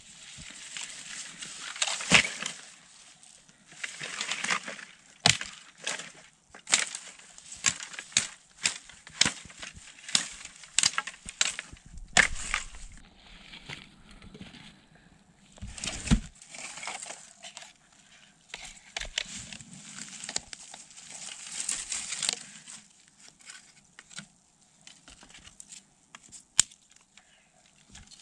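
Irregular sharp snaps and crunches, many in quick succession, with rustling between them: something dry being crushed or broken. They come thick and fast for most of the stretch and thin out to scattered clicks near the end.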